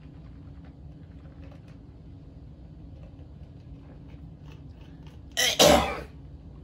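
A man gagging on a mouthful of wheatgrass juice: one sudden sputtering cough about five seconds in, a short start and then a louder burst, as the liquid is forced out.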